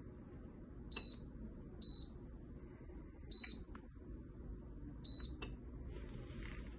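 Tefal heating blender's control panel beeping as its buttons are pressed: four short, high single-tone beeps, the first about a second in, with faint clicks of the buttons between them.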